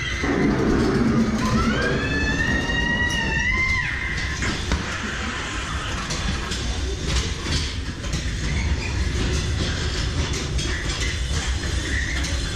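Ghost-train ride car rolling along its track with a steady low rumble and scattered clicks and knocks. From about a second in, a squeal with several overtones rises in pitch for a couple of seconds and cuts off.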